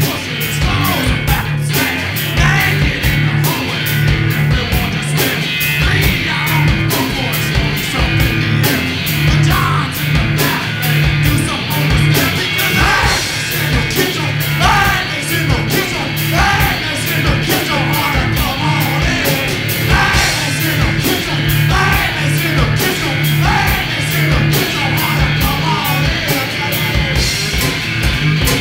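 Live rock from a guitar-and-drums duo: an electric guitar over fast, steady drum-kit beats, with shouted singing coming in now and then.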